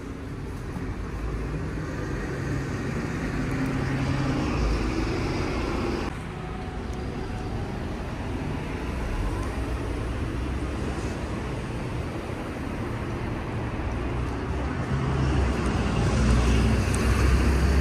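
Street traffic: cars passing with engine and tyre rumble, swelling as one goes by about four seconds in and again near the end.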